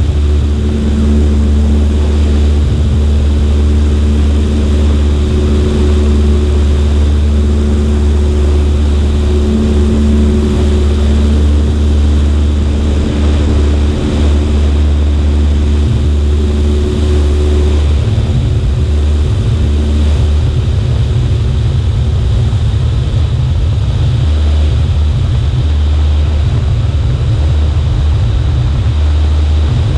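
Cessna 140A's engine and propeller droning steadily in flight, with a constant rush of air noise over it.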